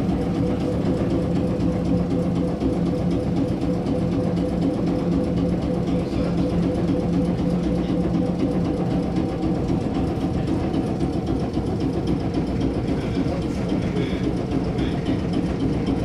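Steady hum and rumble of a Red Rattler electric train carriage, a hum of several steady pitches over a low rumble that neither rises nor falls.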